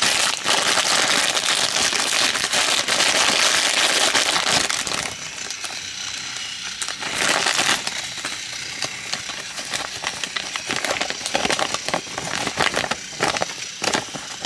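Crinkling of a foil-plastic blind bag being opened and handled, loud and dense for the first five seconds, then quieter, scattered rustles and crinkles as the bag and its paper checklist are handled.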